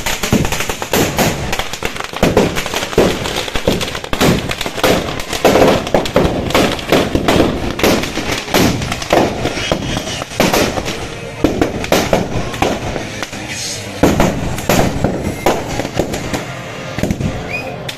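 Firecrackers bursting in a dense, irregular run of bangs and crackles as the Dussehra effigy burns.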